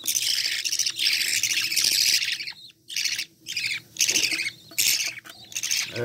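Budgerigar chicks giving rapid, harsh begging calls as an adult budgie feeds them. The calls come in runs with short breaks a little before halfway and again near the end.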